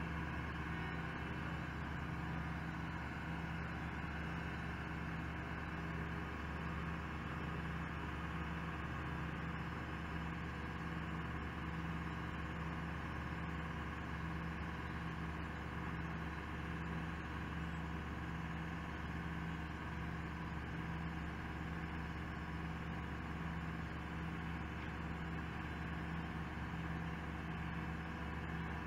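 Diesel engines of an asphalt paver and the dump truck feeding it, running steadily at a constant pitch and level.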